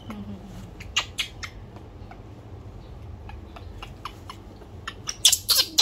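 Baby monkey making short, scattered clicks and squeaks while being held, with a louder flurry of sharp high squeaks near the end.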